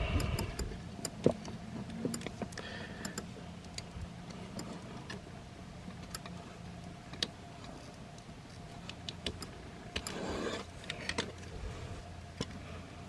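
Hard plastic clicks, ticks and small rattles of a transforming robot figure's joints and panels being rotated and folded by hand, with a brief rustling scrape about ten seconds in, over a faint steady hum.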